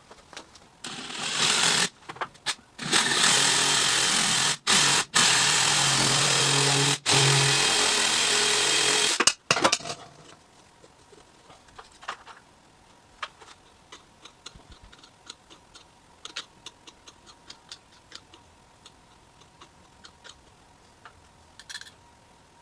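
A power tool runs loudly in several bursts, starting about a second in and stopping just under ten seconds in. After that come faint, scattered clicks and ticks.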